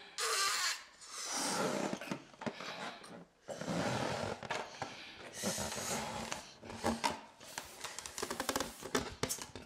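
Two people blowing up rubber balloons: a series of long, breathy puffs into the balloons with short breaths in between, and small crackling clicks near the end.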